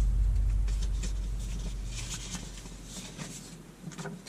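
A sheet of paper rustling as it is handled and lifted, over a low hum that fades away.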